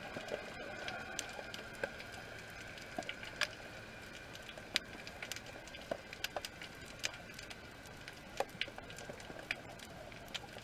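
Underwater ambience: scattered sharp clicks and crackles, irregular and a few a second, over a steady faint hiss.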